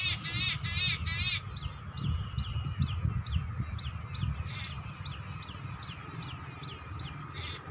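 Wild birds calling: a fast series of harsh, crow-like calls for the first second and a half, then a steady run of short, thin, falling notes, about two a second, over a low rumble.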